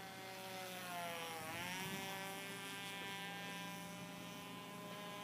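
Small .074 model glow engine of an RC airplane in flight, a high buzz. Its pitch sags about a second and a half in, then jumps back up and holds steady.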